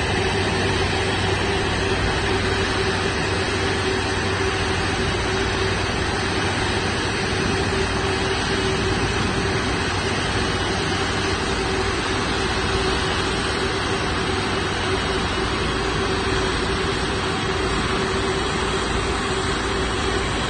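Airbus A330-200 airliner's jet engines running steadily: an unbroken rushing noise with a constant hum held under it.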